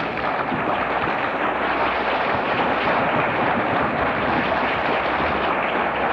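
Audience applauding, a steady, even clatter of many hands clapping.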